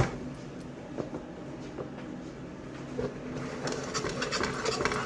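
A metal ladle stirring and scraping gram flour as it roasts in a pan, with a few soft metal taps, over a steady low hum.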